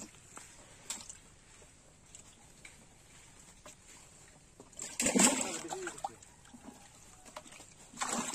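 A live fish splashes into a bucket of water about five seconds in and thrashes briefly, with a second short splash near the end.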